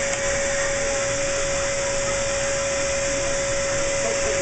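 Electric cast saw running steadily with a high, constant motor whine, cutting through a plaster or fibreglass arm cast; near the end it is switched off and its pitch falls as the motor winds down.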